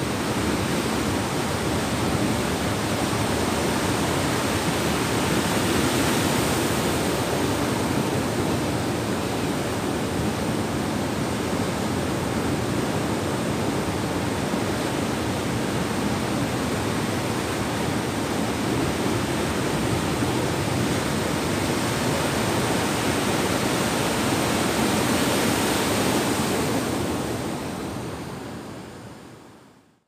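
Sea surf breaking and washing over a sandy shore: a steady rush of waves that swells a little about six seconds in and again near the end, then fades out.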